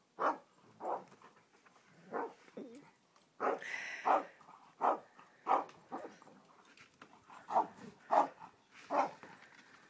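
A dog barking repeatedly: about a dozen short barks, often in pairs, spread through the whole stretch.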